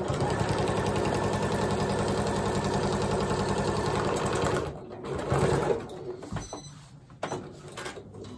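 Janome Skyline computerized sewing machine stitching a side seam through two layers of vinyl. It runs fast and steady for about four and a half seconds, then stops, followed by softer handling noises and a few clicks.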